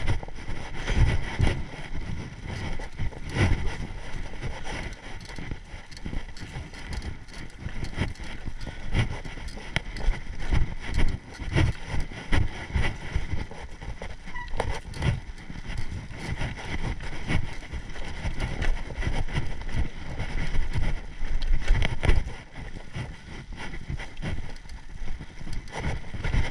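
Mountain bike riding on a dirt trail, heard through a GoPro's microphone: wind buffeting the mic, with the bike rattling and thumping irregularly over the rough ground.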